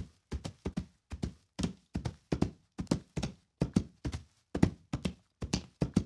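Foley horse hoofbeats: sharp, dry clip-clops performed by hand for a cantering horse, about four strikes a second in an uneven rhythm of twos and threes, with silence between the strikes.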